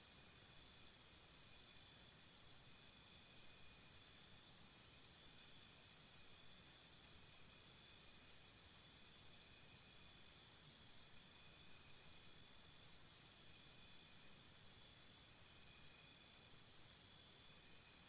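Faint jungle morning ambience: insects chirping in steady pulses, about four a second, that swell in runs lasting a few seconds, with fainter high chirps above them.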